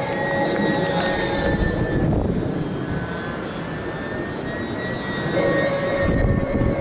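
Small electric RC plane's motor and propeller whining, the pitch shifting as the throttle changes, with wind buffeting the microphone.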